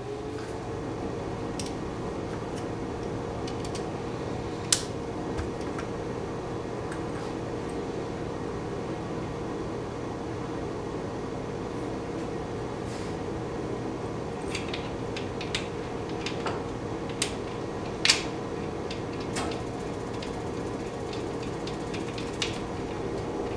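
A small electric motor runs steadily with a constant hum. Now and then sharp metallic clicks and clinks of hand tools sound over it, the loudest two about five seconds in and near eighteen seconds.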